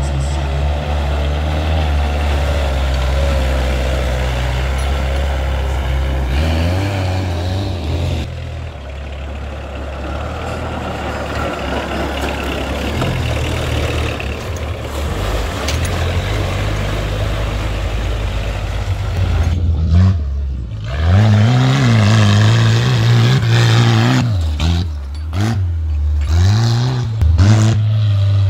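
Small homemade tractor engines running under load while driven through mud. The engine runs steadily at first, then revs up and down repeatedly in the second half.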